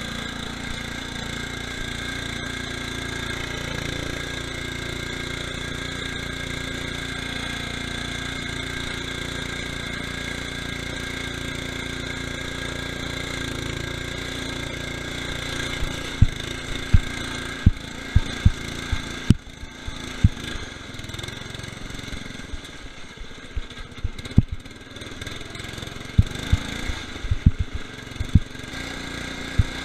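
Murray lawn tractor's 12.5 hp Briggs & Stratton engine running at a steady pitch. From about halfway through, the engine sound gets quieter and uneven, broken by repeated sharp low thumps.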